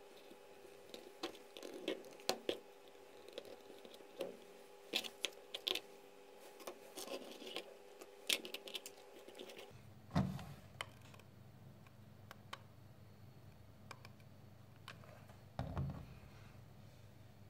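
Light wooden clicks and taps of ice-cream-stick craft pieces (round stick wheels and a stick frame) being handled and set down on a tabletop, over a faint steady hum. The hum changes about ten seconds in, and two louder knocks come then and again near the end.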